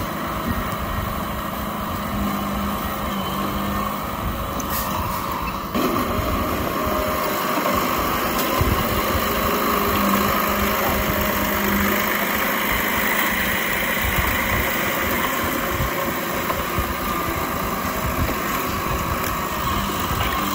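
Diesel engine of an old Komatsu D31P crawler bulldozer running steadily while it works, a little louder from about six seconds in.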